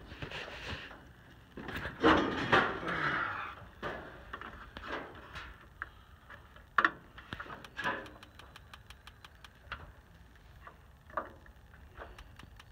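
Propane gas grill being lit: a couple of bursts of handling and clattering near the tank and burners, then a run of sharp clicks at uneven intervals from the grill's spark igniter, with no burner catching.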